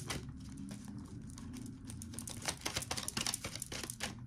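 Tarot cards being shuffled and handled: a run of quick, light papery clicks and flicks, thickest about halfway through.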